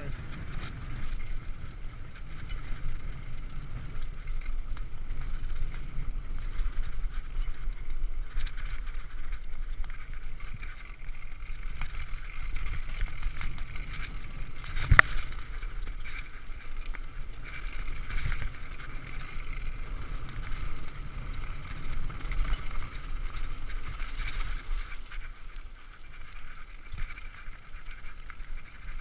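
Mountain bike riding a rough dirt singletrack: tyres and frame rattling over the ground with wind rumble on the microphone, and one sharp knock about halfway through.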